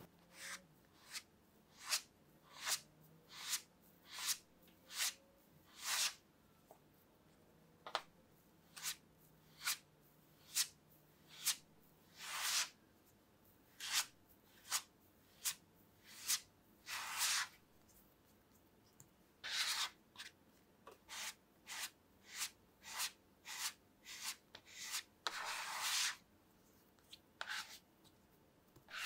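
Plastic bench scraper pressing and smearing sable cookie dough across a hard work surface: short scraping strokes, roughly one a second, with a few longer drags and brief pauses.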